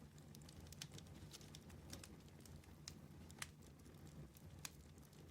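Near silence: a faint low hum with scattered soft clicks.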